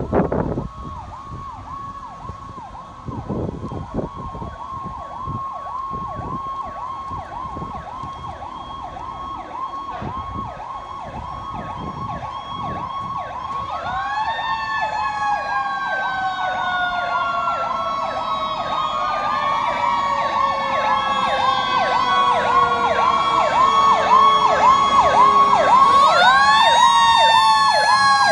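Fire apparatus sirens: an electronic yelp sweeping rapidly up and down, about three times a second. About halfway through, a mechanical Q-type siren joins it, winding up quickly and coasting slowly down, three times. Both grow steadily louder as the trucks approach.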